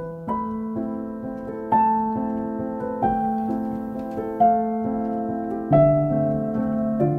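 Soft background piano music, slow separate notes and chords that ring out and fade.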